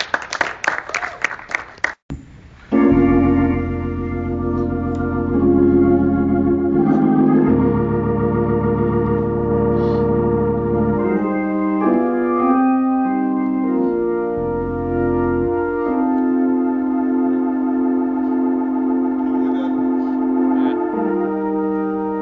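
Hammond organ playing held, full chords that change every few seconds, with deep bass notes under them through much of the first half. It starts after about two seconds of quick, choppy sound and a brief dropout.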